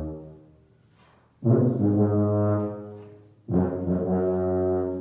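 Tuba played solo: the tail of a note dies away, then after a short pause two long low notes, each with a strong attack that slowly fades, the second held almost to the end.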